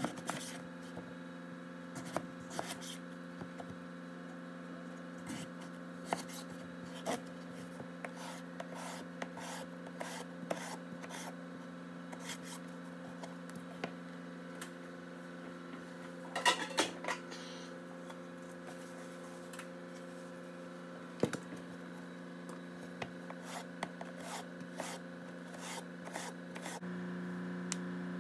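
Vegetable peeler scraping the skin off a raw potato in short, irregular strokes, with a quick run of strokes about halfway through.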